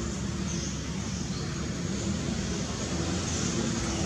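Steady low rumble of outdoor background noise, with a few faint high hissing swells.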